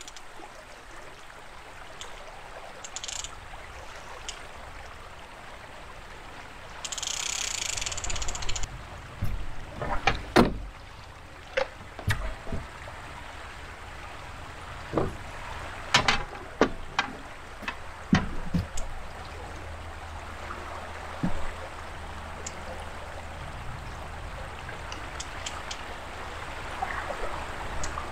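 River water running around a metal boat, with a short splashy hiss about seven seconds in. A run of sharp knocks and clunks follows between about ten and nineteen seconds as the landing net is handled against the boat.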